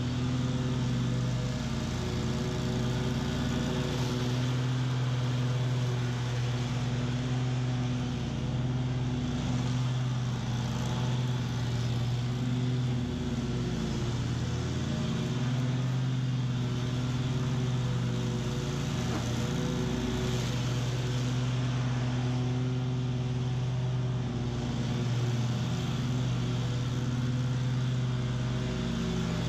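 BOB-CAT QuickCat 36-inch stand-on mower running steadily at cutting speed, engine and blades working through tall, thick weeds. Its pitch sags briefly a few times as the engine takes on load.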